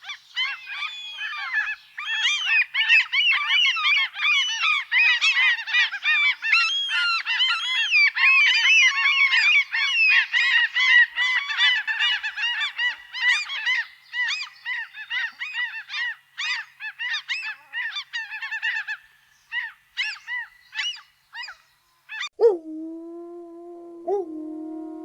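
A flock of birds calling, with many short overlapping calls packed densely together, thinning out after about twenty seconds. Near the end a different animal starts a long, steady howl-like call that bends in pitch at its onset.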